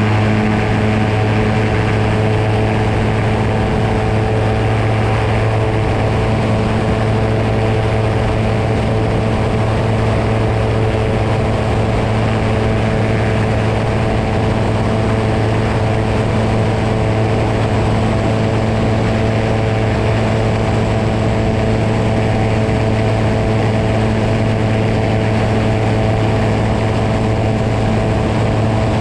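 SeaMax amphibian's engine and propeller running steadily at constant power, a continuous drone with no change in pitch.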